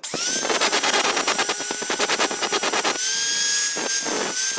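Electric angle grinder with a foam polishing pad, spinning up with a rising whine, then running steadily while it buffs the wooden handle of a kitchen knife. The sound cuts off abruptly near the end.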